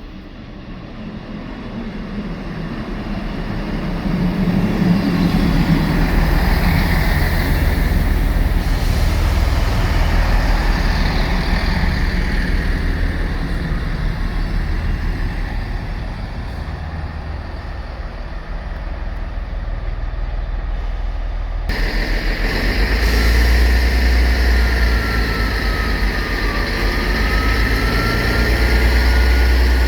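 Heavy diesel rumble of a train at the station, growing louder over the first few seconds and then holding steady. After an abrupt cut about 22 seconds in, the rumble continues with a thin whine that dips and then rises in pitch.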